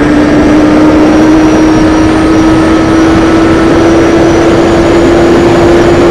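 Kawasaki Z750's inline-four engine pulling hard at high revs, its note climbing slowly and steadily as the bike accelerates through about 190 km/h toward 200. Heavy wind rush from the speed runs throughout.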